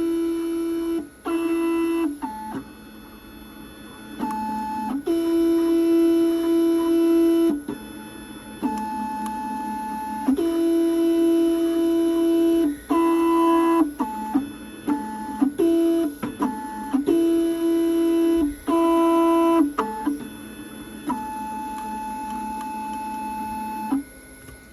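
Keyline Laser 994 key-cutting machine running its automatic jaw calibration: its motors whine in a series of stop-start moves, each from about half a second to two seconds long, stepping between a few steady pitches with short pauses between.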